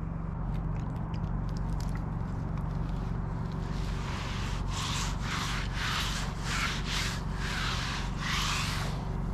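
Wet, freshly sawn madrone slab being wiped down, about seven rubbing strokes back and forth across the wood starting a few seconds in, over a steady low hum.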